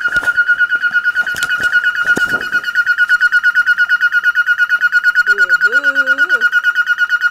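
Prop time bomb's electronic beeper sounding a fast, even beep, about nine beeps a second. The countdown has run out. A few light clicks of wire handling come in the first couple of seconds.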